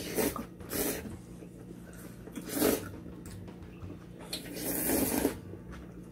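People slurping spicy cold naengmyeon noodles in a series of noisy slurps, two short ones near the start, a sharp one about two and a half seconds in, and a longer one of about a second around four to five seconds in.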